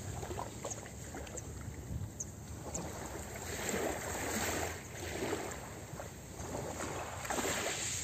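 Small waves lapping onto a pebble beach, the water washing in and drawing back over the stones in soft swells every second or so, with a few faint clicks of pebbles.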